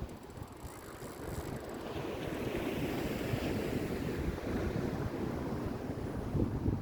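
Ocean surf washing on the beach, with wind rumbling on the microphone; the hiss of a breaking wave swells about two seconds in and fades again.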